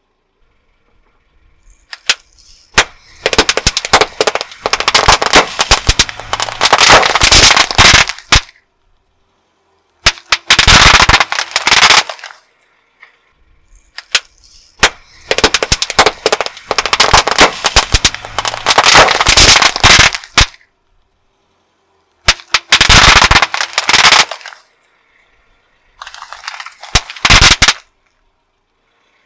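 Small paper firecrackers set off by a car tyre rolling over them, going off in rapid strings of bangs and crackles. There are about five separate bursts, two of them lasting several seconds, with short pauses between.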